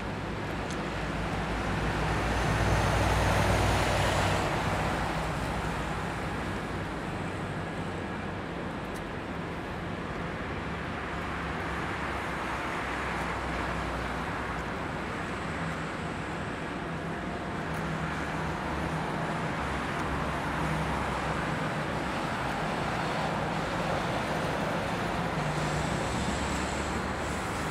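Road traffic going by: a steady wash of tyre and engine noise, louder as one vehicle passes about three seconds in.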